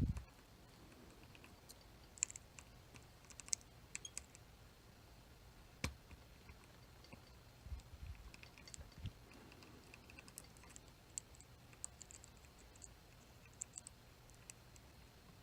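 Chicago Ace tubular lock being picked: faint, irregular small metallic clicks and ticks as the pick tool works the pins, with one sharper click about six seconds in.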